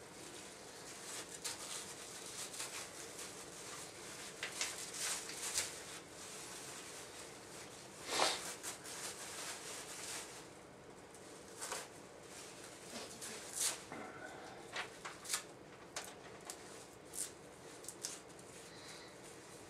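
Wrapping paper and gift packaging rustling, crinkling and tearing in irregular bursts as presents are unwrapped, with the loudest rip about eight seconds in.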